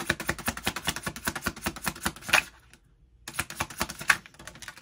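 A deck of tarot cards shuffled by hand: a fast, even run of card clicks. It stops for about half a second nearly three seconds in, then starts again and dies away near the end.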